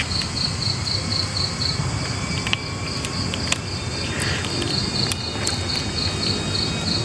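Cricket chirping in a steady, even pulse, about five chirps a second, over a low rumble.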